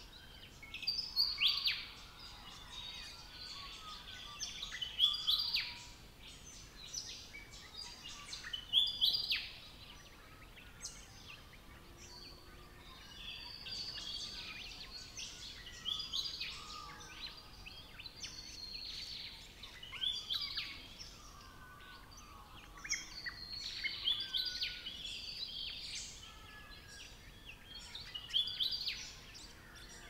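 Several wild Australian birds calling and singing over one another, with bursts of loud whistled and sweeping notes every few seconds.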